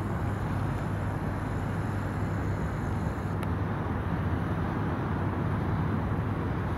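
Steady low rumble of airliner jet engines heard across the apron, with a faint high whine above it.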